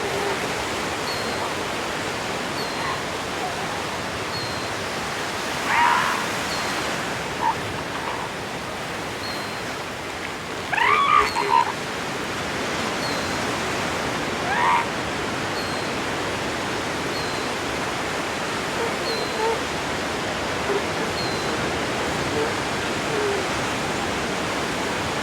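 Steady wash of surf on a beach with a few short seal calls rising above it, about six, eleven and fifteen seconds in, the middle one loudest. A faint high chirp repeats about once a second underneath.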